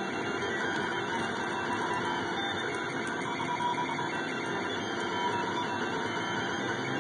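SeeMeCNC Orion delta 3D printer running steadily, its stepper motors and fan making a continuous whirr with faint tones that shift a little as the print head moves.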